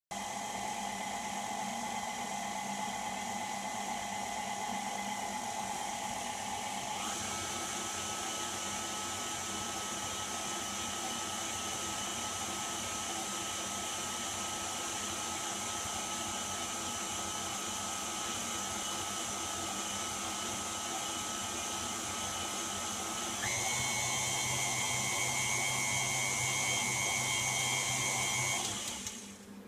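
KitchenAid tilt-head stand mixer running, its flat beater turning in a steel bowl of batter, with a steady motor whine. The whine steps up in pitch about seven seconds in and again, louder, near 23 seconds, then the motor winds down near the end.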